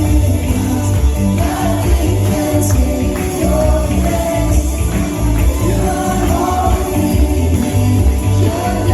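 Live gospel-style worship music: a band with a heavy, pulsing bass and voices singing together.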